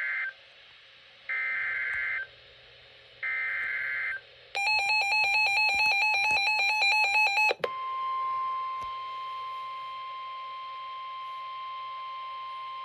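Emergency Alert System SAME header: three bursts of warbling digital data tones, each about a second long with a pause between, the first ending just as it begins. Then comes about three seconds of a rapidly pulsing, buzzy electronic tone. After that a steady single-pitch weather radio warning alarm tone holds to the end, announcing a severe thunderstorm warning.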